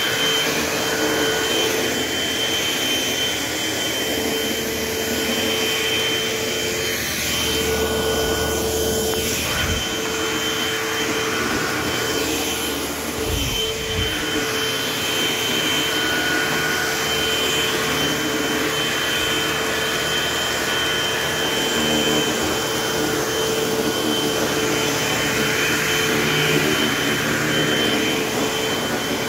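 Eureka AirSpeed AS1101 upright vacuum cleaner running steadily, its motor whine holding one pitch, with a few brief low thumps about ten and fourteen seconds in.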